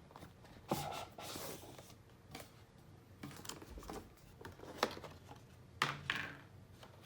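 A doorbell's retail box and packaging being opened and handled: scattered clicks and taps, some followed by brief rustling.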